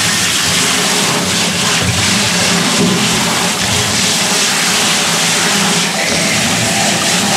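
Garden hose spray nozzle spraying water steadily onto a plucked, gutted chicken in a stainless steel sink, rinsing the carcass clean after evisceration.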